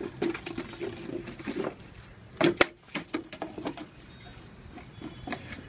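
A drink bottle knocked about and chewed by two playing dogs, a Great Dane puppy and a Boxer. It makes irregular clicks and knocks, the loudest about two and a half seconds in.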